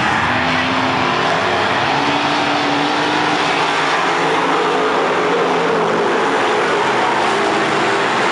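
A field of dirt-track Sportsman stock cars racing by at speed, their engines loud and steady, with engine notes rising in pitch as the cars accelerate.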